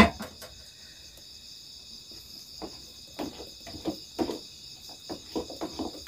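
A steady high chorus of night insects. From about halfway, a run of light, irregular taps and clinks from a spoon stirring coffee in a plastic mug.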